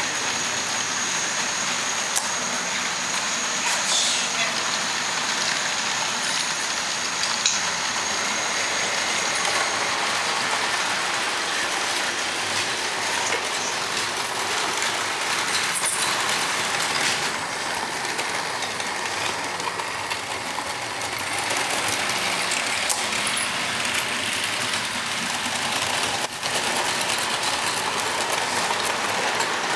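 Model trains running on a layout: a steady whirring rattle of small electric locomotive motors and wheels on the track. A thin high whine sounds over the first third and stops, with a few faint clicks along the way.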